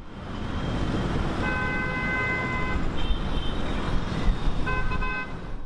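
Street traffic noise with car horns honking: one long honk, then two shorter ones.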